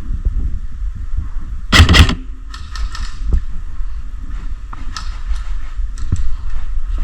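A short burst of airsoft gunfire: a few quick sharp cracks about two seconds in, with fainter clicks after. Wind rumbles on the microphone throughout.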